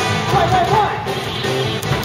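Baseball team's cheer song for the batter playing over the stadium loudspeakers, with a voice singing along over the music.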